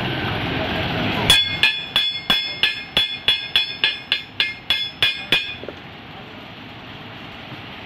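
A hammer striking metal in a steady series of about fourteen ringing blows, roughly three a second, that stop a little over five seconds in. Before the blows there is a steady workshop hum.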